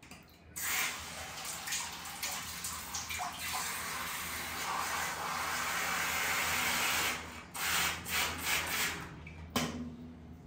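Water rushing from a handheld bidet sprayer into a balloon as it fills. The flow runs steadily for several seconds, then comes in a few short spurts, with a sharp click near the end.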